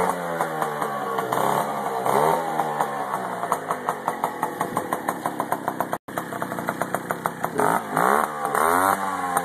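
1980 Puch Newport II moped's small two-stroke engine running through an aftermarket street cheater exhaust pipe, loud and raspy. It is revved up and down with the throttle several times, settling between blips into a fast, evenly pulsing idle, with the revs rising again near the end.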